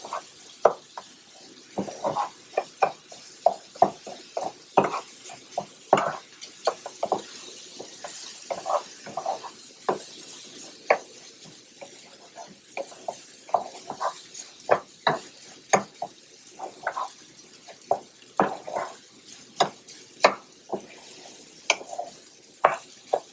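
Wooden spoon stirring washed jasmine rice and diced vegetables in a nonstick skillet, with irregular scrapes and knocks against the pan two or three times a second. A faint sizzle runs underneath as the rice toasts in the pan.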